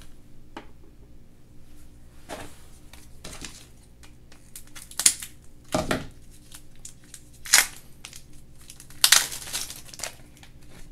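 Surprise-egg packaging being handled and opened by hand: scattered crinkling, crackling and tearing, with half a dozen louder sharp crackles spread through.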